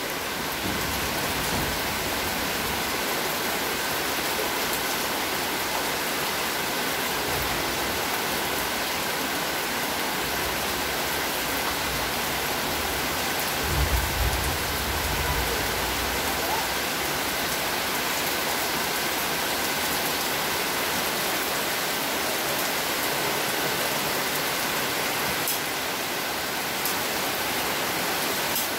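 Steady heavy rain falling on concrete paving and leaves, an even hiss with no let-up. A brief low thump comes about halfway through.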